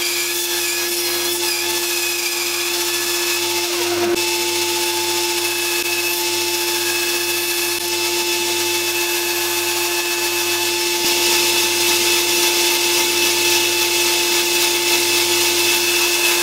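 Bandsaw running with a steady hum and whine, its narrow blade cutting a small wooden block into a dog shape. A brief click about four seconds in, and the cutting hiss grows louder about eleven seconds in.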